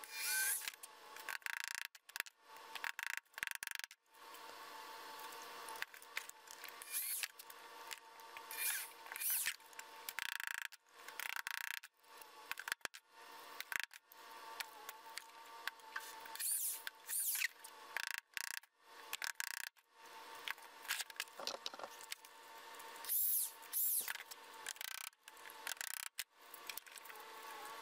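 Short bursts of a cordless drill running and sharp hammer taps driving small copper nails through metal mesh into a wooden box, broken up by sudden breaks.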